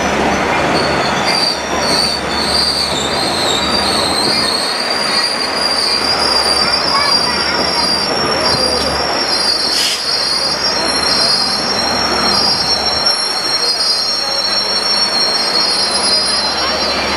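Steel wheels of a Chihuahua–Pacific (El Chepe) passenger train squealing on the rails as the train rolls slowly: several high, steady squealing tones held over the rumble of the rolling cars.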